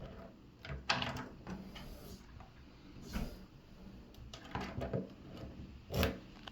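Clicks and clunks of a key being worked in a door lock and the door hardware: a scattering of sharp clicks about a second in, around three seconds and near five seconds, and a louder knock about six seconds in.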